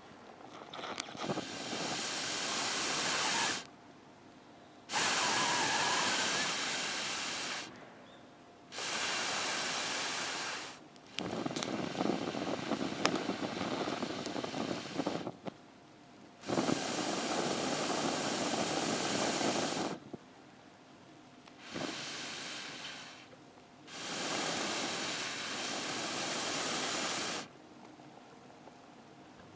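A hissing rush of air-like noise coming in about seven separate bursts, each two to four seconds long, with short pauses between them.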